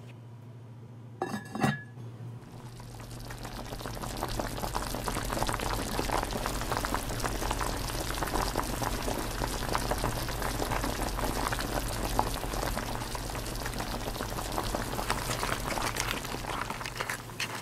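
Mussels steaming in white wine in an enamelled pot. The liquid boils with a dense bubbling crackle that builds over the first few seconds and then holds steady. There is a short clink about a second and a half in, and a steady low hum underneath.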